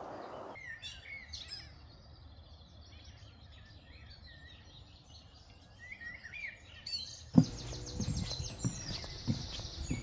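Small birds singing and chirping, faint at first. About seven seconds in, footsteps on a wooden boardwalk begin, thudding about twice a second, with a higher bird trill above them.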